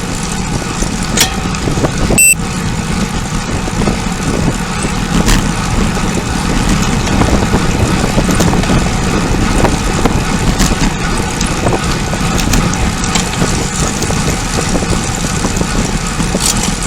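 Steady rush of wind and road noise on a camera riding along on a bicycle at speed, with a few short, sharp clicks.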